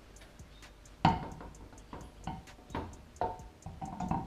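Spare wheel being slid onto the hub's lug bolts: a loud metal clunk about a second in, then several lighter knocks with a short ring as the wheel seats on the hub.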